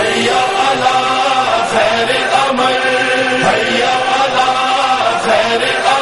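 Voices chanting in chorus in a Shia noha (lament), holding long, steady notes.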